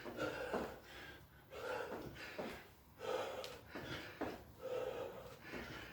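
A person breathing hard in short rhythmic puffs, about one a second, from the exertion of doing frog jacks.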